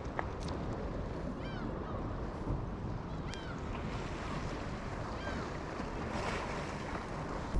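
Wind buffeting the microphone over the wash of sea waves, with a few short, falling chirps here and there.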